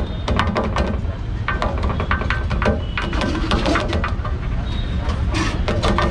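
Clatter of metal utensils and cookware at a street-food stall: quick, irregular clicks and taps over a steady low rumble of traffic, with voices in the background.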